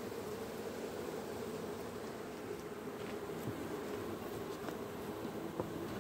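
An open hive of local Omani-type honeybees buzzing in a steady, continuous hum, with a light knock near the end.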